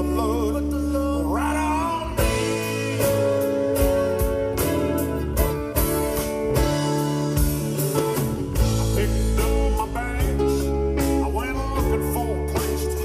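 A live rock band plays with acoustic and electric guitars, bass, keyboard and drums, and a voice sings over it. The drums come in on a steady beat about two seconds in.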